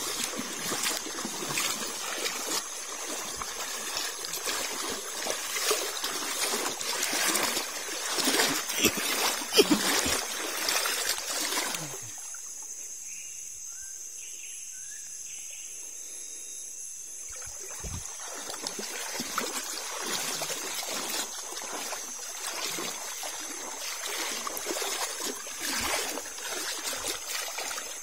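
A shallow stream trickling over a stony bed, with scattered small splashes. The water sound drops away almost entirely for about five seconds in the middle, then returns.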